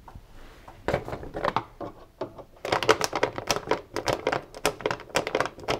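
Rapid, irregular metallic clicking and scraping as the screw of a washing machine door seal's inner retaining band is undone with a screwdriver, the nut held with a socket. The clicking starts about a second in and gets busier from about halfway.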